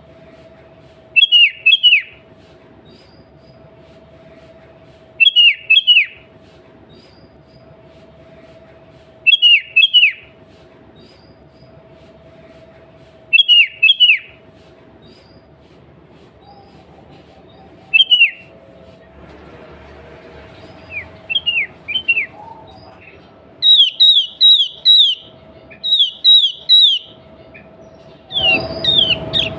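Sooty-headed bulbul (kutilang) singing: short phrases of two or three quick falling whistled notes, repeated about every four seconds, then faster runs of notes near the end, over a steady faint hum. A louder rush of noise joins in just before the end.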